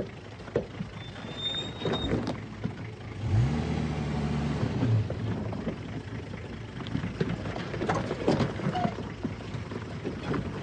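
Heavily loaded 4x4 crawling over rocks: the engine labours at low speed, revs up about three seconds in and eases off a second and a half later, with scattered knocks and crunches from tyres and suspension on the stones.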